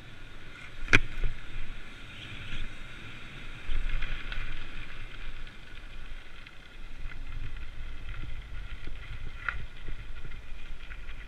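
Identiti Krisis MX 24-inch BMX cruiser rolling, tyre noise over pavement and then a rougher rumble over gravel, with wind on the microphone. A sharp knock about a second in and a smaller one near the end.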